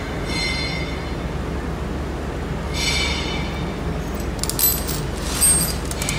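Metal clinks and knocks of mold parts and tools over a steady low machine hum, with two brief high-pitched squeals, the first near the start and the second about three seconds in.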